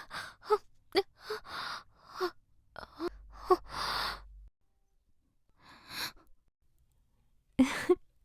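A woman laughing: a quick run of short breathy bursts with gasping in-breaths that stops about four and a half seconds in, a faint breath near six seconds, then another short laugh near the end.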